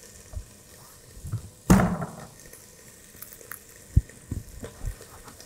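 Kitchen handling noises as garlic cloves are crushed with a knife and put into a pan of hot olive oil: one sharp knock a little under two seconds in, with a few lighter taps and clicks around it.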